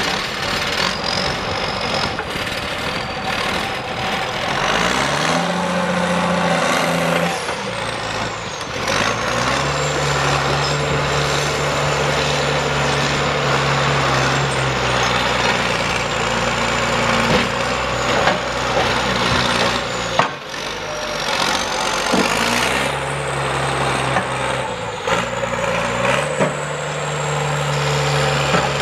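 Heavy logging-machine engine revving up and holding several times, dropping back in between, with a high whine that rises and falls along with it.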